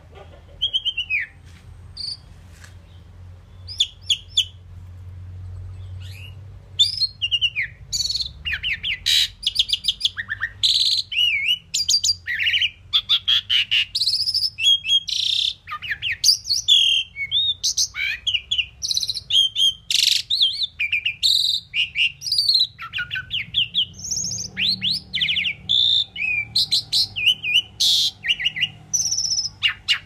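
Asian pied myna singing. At first there are a few scattered whistles and chirps, and from about seven seconds in comes a fast, varied stream of whistles, chirps and rising and falling glides.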